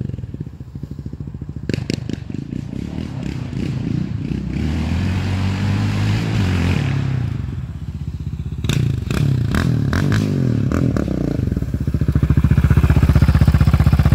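Yamaha Raptor ATV's single-cylinder engine through a Big Gun aftermarket exhaust, revving up and down, with several sharp cracks about two thirds of the way through. Near the end it runs loud and steady close by, settling toward idle.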